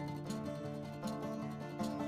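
Instrumental background music of plucked strings, guitar-like, with a steady beat.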